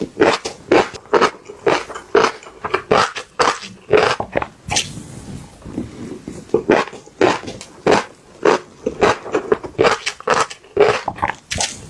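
Close-up crunchy chewing and biting of fish roe: sharp, irregular crunches several times a second, with a brief lull about halfway through.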